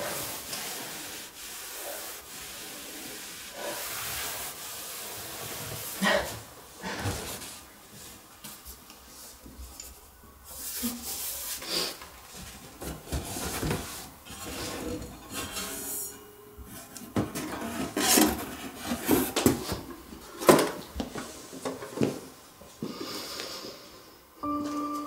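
Objects being handled in cardboard boxes: irregular rubbing, rustling and light knocks as things are lifted out and set down, with a few sharper thumps in the second half. Music begins just before the end.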